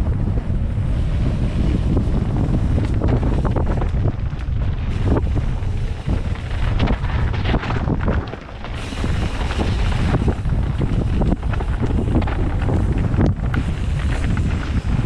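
Wind buffeting the microphone of a rider-mounted camera during a fast enduro mountain-bike descent, over a steady low rumble with many short knocks and rattles as the tyres run over rocky, gravelly trail. The noise dips briefly about eight and a half seconds in.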